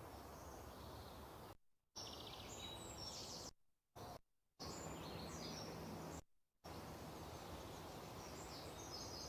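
Faint birdsong ambience over a steady hiss, broken by four brief drop-outs to dead silence: a filler track standing in for the muted live sound from the house.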